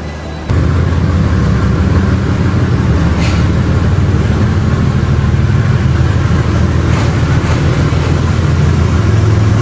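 Pakistan Railways diesel locomotive's engine running close by: a loud, steady low drone that starts abruptly about half a second in.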